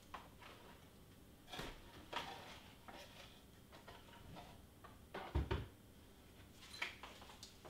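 Faint, scattered knocks and clatter of someone looking for a pin among craft supplies away from the table. There are about four of them, and the loudest is a dull thump about five seconds in.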